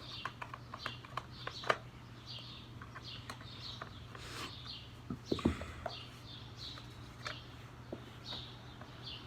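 Small birds chirping over and over, with scattered sharp clicks and taps from work on a window air conditioner's casing and a louder dull knock about five and a half seconds in, over a steady low hum.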